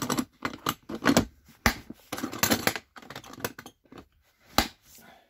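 Plastic toolbox being handled and latched: tools rattling, the case knocking, and two sharp snaps of its metal latches, about two seconds in and near the end.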